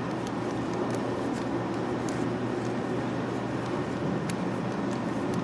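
Steady low background hum with a few faint light clicks as a hydraulic hose fitting is handled and threaded together by hand.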